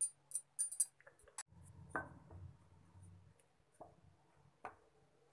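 Faint kitchen handling sounds: scattered light ticks in the first second or so, then a few separate sharp clicks and knocks of cookware.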